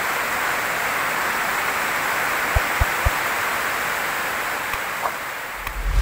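Heavy rain falling steadily, with water pouring off a roof edge. A few soft low thuds come about two and a half to three seconds in, and a low whoosh starts just before the end.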